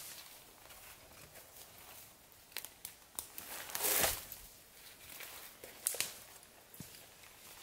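Dead branches and dry twigs crackling and snapping as a long pole is worked through brush, with a louder rustling crunch about four seconds in and a sharp snap about a second later.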